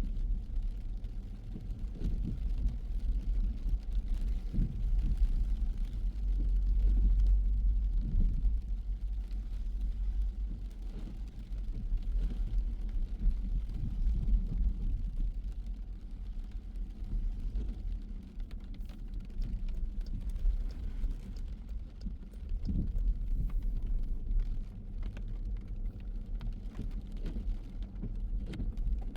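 Car on the move: a steady low rumble of engine and road noise that swells and eases slightly.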